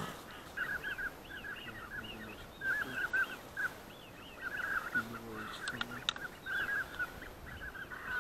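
Wild geese calling: a steady run of short, high, arched honks from a flock, overlapping one another.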